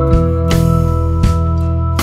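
Instrumental background music with held notes and a few new notes struck.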